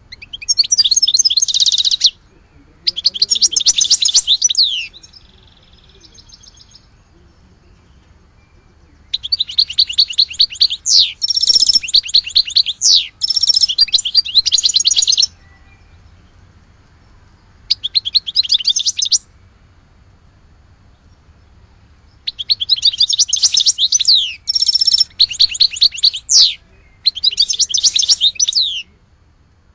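European goldfinch singing a Sidi Youcef-style song: rapid, high twittering trills with quick sweeping chirps, delivered in bursts from one to several seconds long with short pauses between them.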